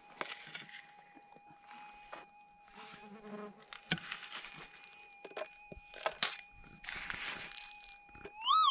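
Minelab gold detector holding a steady buzzing threshold tone while a hand pick scrapes and knocks into stony soil every second or two. Near the end the tone swells and warbles up and down: the detector signalling a target.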